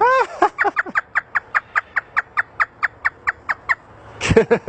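African grey parrot imitating a hysterical human laugh: a long run of quick 'ha' notes, each falling in pitch, about five a second, then a louder burst of laughter near the end.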